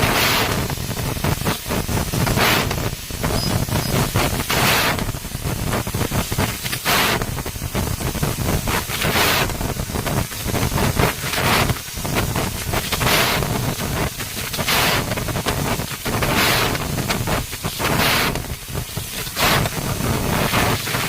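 CNC laser cutting machine running: a loud, steady rushing noise with a brighter hiss that comes back about every two seconds.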